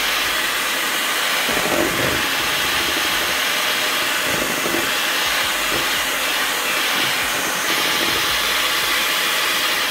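Electric kitchen mixer running steadily at high speed, whipping the mousse mix and milk.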